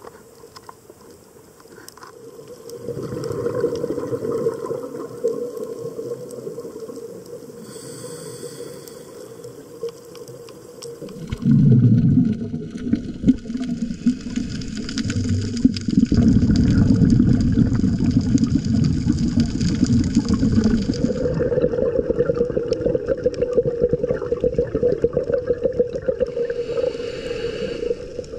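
Underwater sound picked up through a dive camera's housing: a scuba diver's exhaled bubbles rushing and gurgling over a steady low hum. The rushing turns loud and rough around the middle, then settles back under the hum.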